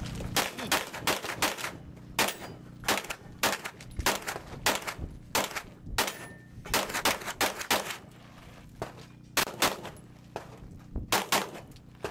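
Handgun fired rapidly in a long string of sharp shots, about three a second, as a competitor engages targets in a timed practical-shooting course of fire. The shots pause for about a second and a half a little over halfway through, then resume.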